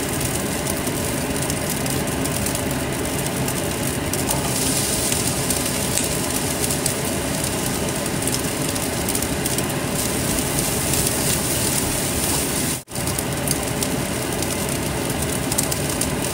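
Cold cooked rice and corn kernels sizzling steadily as they stir-fry in a nonstick wok. The sound cuts out for an instant about thirteen seconds in.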